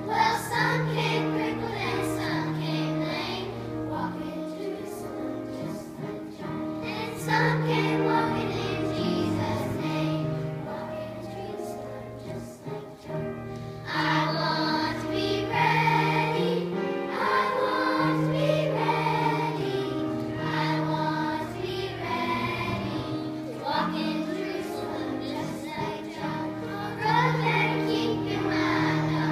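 A children's choir singing in unison over an instrumental accompaniment of steady low bass notes, the voices growing fuller about halfway through.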